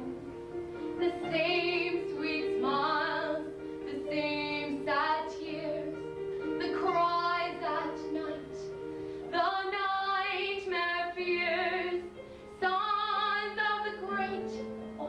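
A woman singing a slow song in phrases with long held notes, over a band accompaniment of steady sustained chords.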